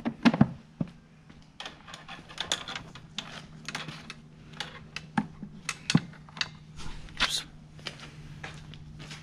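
Scattered irregular clicks and light knocks as a plastic side cover is handled and fitted onto a 1982 Yamaha IT250 dirt bike's frame, over a faint steady low hum.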